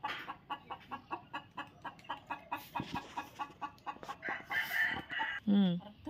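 Free-range village chickens clucking in a quick, even series of about five clucks a second, then louder, longer calls near the end.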